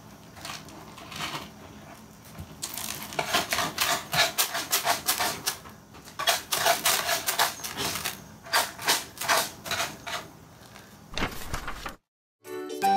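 A kitten digging and scratching in cat litter, the grains scraping and rattling in quick bursts of strokes. Near the end it cuts off and light music starts.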